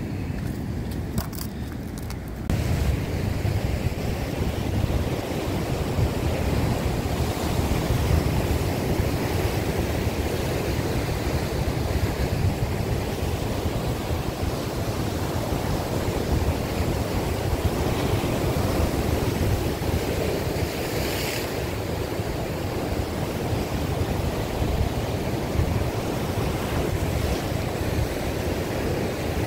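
Ocean surf washing and breaking on rocks, mixed with strong wind buffeting the microphone. It steps up in loudness about two and a half seconds in.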